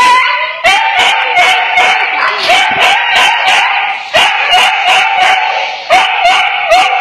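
A terrified, previously abused dog yelping and screaming nonstop in rapid, high cries, about two or three a second, as a hand pets it: panic at being touched.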